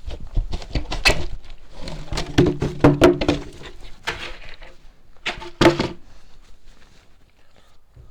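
A run of knocks and thumps from someone moving about and handling things, with two brief low creaks in the middle, about two and a half and five and a half seconds in.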